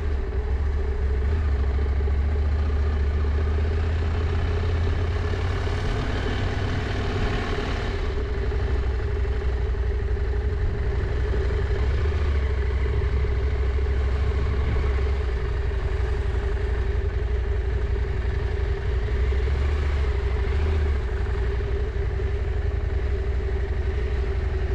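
Husqvarna Norden 901's parallel-twin engine running at low, steady revs as the motorcycle is ridden slowly.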